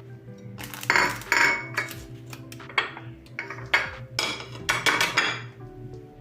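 Dishes and cutlery clattering, with a run of sharp clinks and knocks, loudest about a second in and again in the second half.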